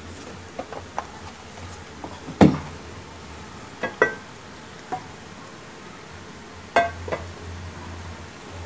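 Kitchenware clinking and knocking: about eight separate sharp metallic clinks and taps, some ringing briefly, the loudest a knock about two and a half seconds in. Under them runs a low steady hum while oil heats in an empty frying pan.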